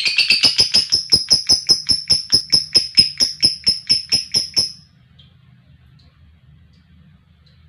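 A lovebird's long chattering trill ("ngekek panjang"): a fast string of sharp, high chirps, about five a second. It stops about four and a half seconds in, and a few faint peeps follow.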